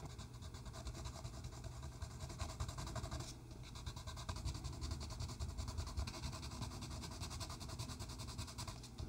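Derwent Inktense pencil scratching on paper in rapid, even, short strokes as an area is coloured in. A steady low rumble runs underneath.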